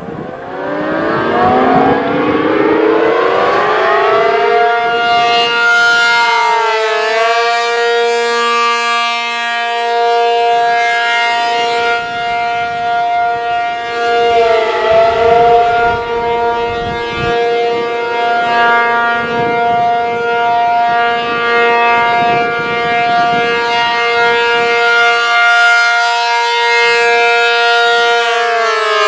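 ACA P-50 outdoor warning siren winding up from a low pitch to a steady high tone over about four seconds, then holding the steady Alert signal. The pitch dips briefly twice and starts falling near the end.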